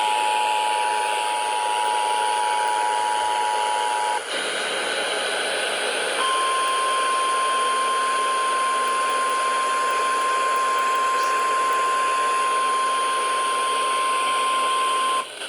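Emergency Alert System attention signal received over a radio: the two-tone alert for about four seconds, then after a short break a single steady 1050 Hz warning tone for about nine seconds, over constant radio hiss. The tones announce a severe thunderstorm warning.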